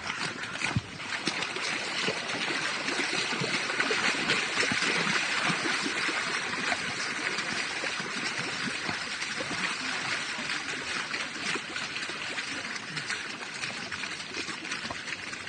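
Running water from a stream rushing, louder a few seconds in and then easing off, with a runner's footfalls ticking through it.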